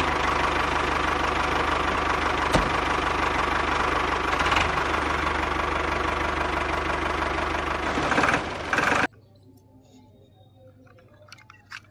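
Tractor diesel engine running steadily with a fast, even knock, stopping abruptly about nine seconds in. Then come faint clicks of plastic toy parts being handled.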